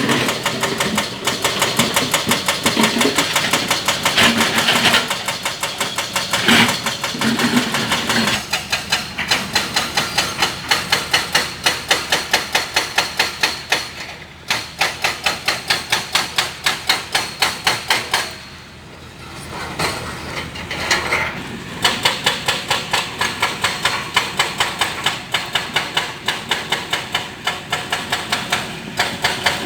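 Rapid, even mechanical hammering at about three blows a second over a running engine, with two brief lulls part way through.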